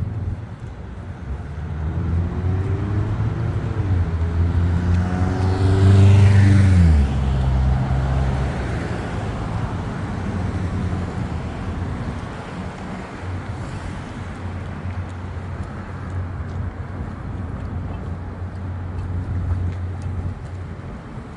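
Road traffic on a city street: a motor vehicle's engine hum builds and passes close about six seconds in, its pitch falling as it goes by, followed by the steady hum of further traffic.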